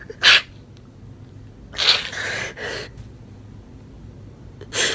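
A man crying between words: a sharp sniff, then a shaky sobbing breath about two seconds in, and another sniff near the end.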